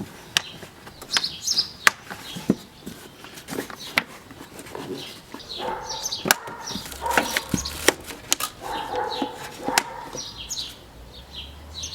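Sharp clicks and snaps at irregular intervals as the clips on the air filter housing are fastened, with small birds chirping in the background.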